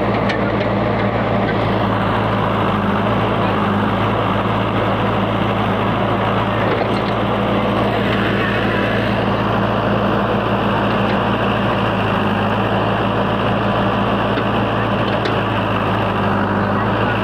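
JCB 3DX backhoe loader's diesel engine running at a steady speed, a constant low drone with no revving.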